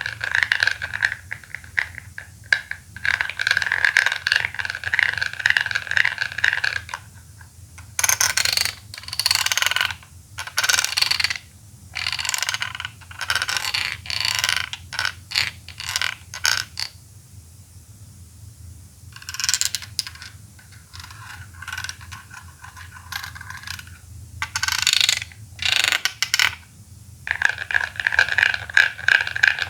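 Plastic toy Poké Balls being handled: runs of rapid clicking and ratcheting, broken up by separate bursts of scraping plastic.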